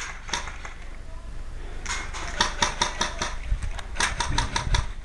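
Airsoft guns firing: a string of sharp snapping shots, a few at first, then several a second from about two seconds in. A low rumble runs underneath.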